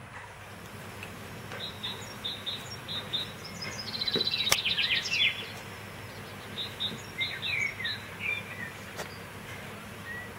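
Small wild birds chirping: series of short high chirps, with a fast trill of falling notes near the middle, over a steady low background hum. Two sharp clicks, one mid-way and one near the end.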